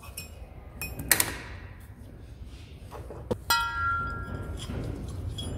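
Metal clinks and knocks from loose pieces of a pressed-out wheel bearing being handled in a steel tube on a hydraulic press bed. A sharp knock comes about a second in, and a ringing metal clank about three and a half seconds in.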